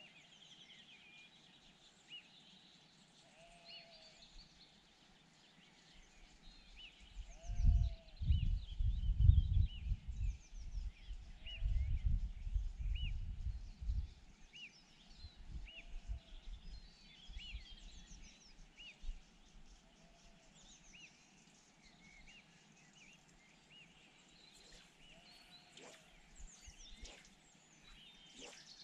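Short animal calls repeating every second or two, some high and some lower, with a stretch of low rumbling noise in the middle that is the loudest part.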